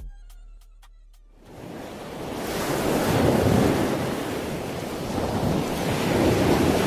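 Sea water surging in waves, a rushing noise that rises about a second and a half in and swells twice, after the last low note of music dies away.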